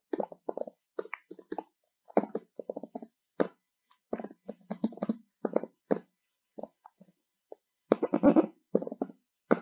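Typing on a computer keyboard: quick runs of keystrokes with short pauses between them, the busiest run coming near the end.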